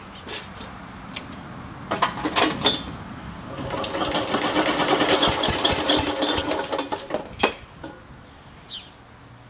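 Old Howard Junior rotary tiller's Sturmey Archer dry-sump engine being started: a few knocks, then it catches and runs with a rapid, loud clatter for about four seconds before cutting out suddenly with a knock. The engine has about 2 mm of piston slap, and the owner takes the stall for flooding.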